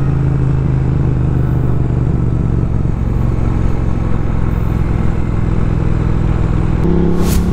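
Engine of a Triumph parallel-twin classic motorcycle running steadily under the rider while cruising. The engine note eases lower about two seconds in, then steps up sharply near the end as the throttle opens, followed by a brief hiss.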